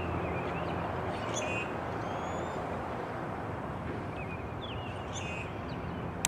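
Steady low hum of a news helicopter hovering at a distance, with birds chirping a few times and a sharp click near the end.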